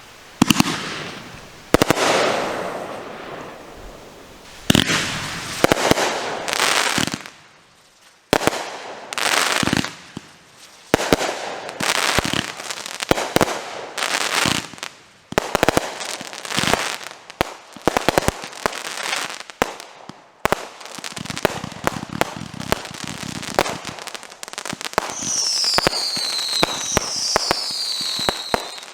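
Consumer firework cakes firing: a rapid run of launch thumps and shell bursts with crackling tails. Near the end come three falling whistles.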